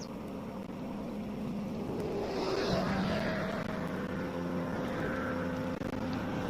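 Motorboat engine running on the river. It grows louder over the first few seconds, then runs steadily.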